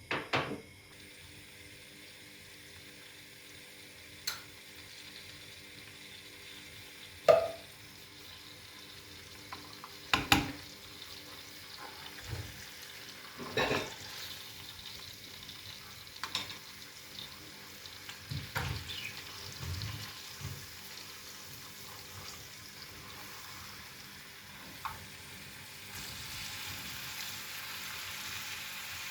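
Food frying in a pan, with a steady sizzle and the occasional clack of a utensil stirring against the pan. The sizzle gets louder near the end.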